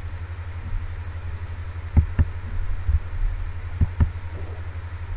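Two quick double-clicks of a computer mouse, the pairs about two seconds apart, over a steady low hum.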